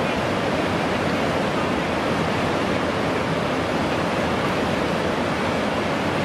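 Steady rush of whitewater on a canoe slalom course.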